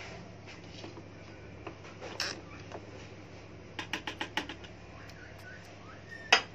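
Clicks and knocks from handling a Kenwood food processor: a short knock, then a quick run of about six clicks, and one sharp, louder click near the end.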